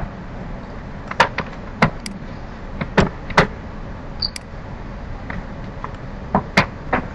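Computer mouse clicks: about ten short, sharp clicks at irregular intervals, bunched in two groups, over a steady hiss.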